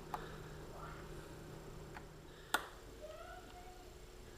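Faint small clicks and ticks of a precision screwdriver and tiny screws being fitted to secure an iPhone 4S charging port assembly, with one sharper click about two and a half seconds in.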